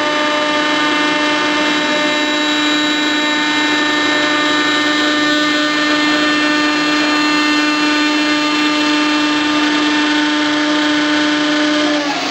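A power tool motor running steadily with a constant whine, its main tone breaking off near the end.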